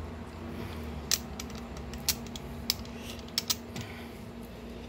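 Steel sockets clinking, about five sharp metal clicks at uneven intervals, as sockets are picked out and handled while the right size for the rotor bolts is sought.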